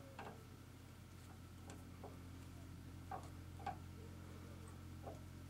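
About half a dozen faint, scattered metallic clicks from a hand tap wrench and a 10-32 taper tap being turned back out of a blind tapped hole in a steel shotgun barrel. A low steady hum runs underneath.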